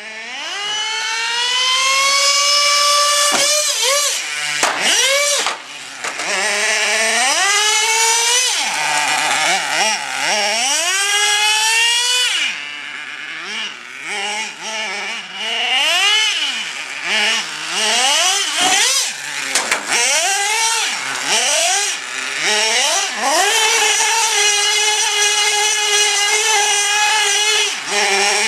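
Gas-powered RC truck's small two-stroke engine revving up and down over and over in rising and falling whines, with the throttle held at a steady high pitch for a couple of seconds near the start and again near the end.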